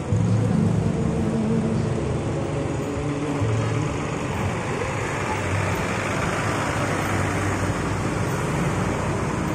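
Daewoo BF106 bus's diesel engine running steadily as the bus drives slowly past close by, over a background of street traffic.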